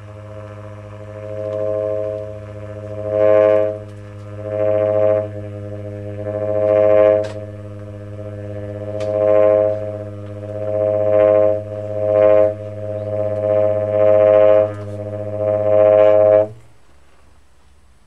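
Tenor saxophone holding one low drone note without a break, its upper overtones swelling and fading again and again. The note cuts off about sixteen seconds in.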